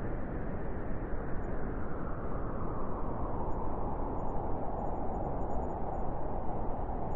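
Wind blowing as a steady rushing noise, weighted toward the low and middle range. It eases off a little a few seconds in and rises again near the end.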